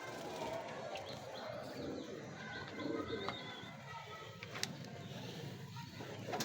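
Domestic pigeons cooing, with a sharp click about four and a half seconds in.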